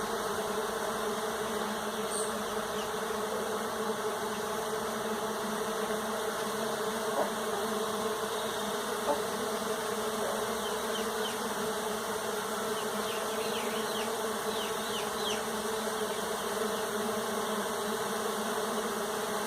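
Many bees buzzing together in a steady, continuous hum.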